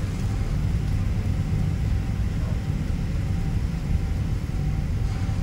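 Steady low rumble of a Boeing 777-200's engines and airframe heard inside the economy cabin while the jet taxis toward the runway.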